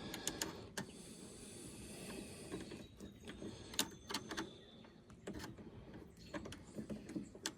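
Faint scattered clicks and clinks of small metal linkage parts being handled and fitted by hand, as the shifter's adjustment shaft and heim joint are worked into place.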